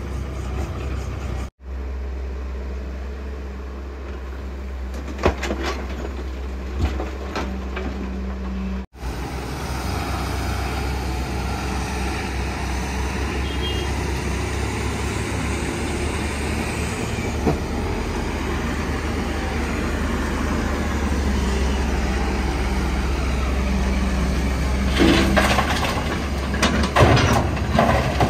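Diesel earthmoving machinery running steadily, a low engine drone with scattered knocks and clanks that grow more frequent near the end. The sound drops out abruptly twice, about 1.5 and 9 seconds in.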